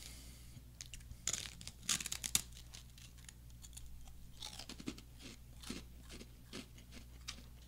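Biting into a large fried honey soy sauce rice cracker: a few loud crunches a little over a second in, then quieter crunchy chewing.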